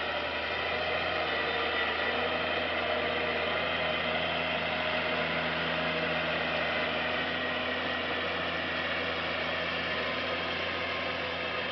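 Case IH X-Line 115 tractor engine running steadily under load as it pulls a disc harrow through deep mud, with a little mechanical clatter over the engine note.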